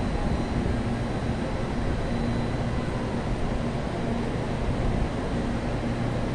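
CPTM electric commuter train running along the platform track: a steady rumble of wheels on the rails with a faint hum.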